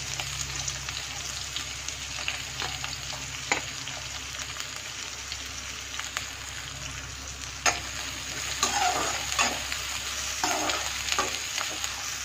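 Chopped onion, green chilli, mustard seeds and cumin sizzling in a little hot oil in a thick-bottomed aluminium kadhai: a steady frying hiss. A metal spatula scrapes and clinks against the pan as it stirs, with a few sharp clicks, and the scraping grows busier in the last few seconds.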